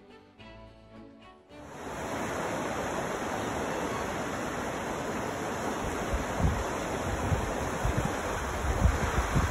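Violin music stops suddenly about a second and a half in, giving way to the steady rush of a fast-flowing river. In the later seconds wind buffets the microphone in gusts.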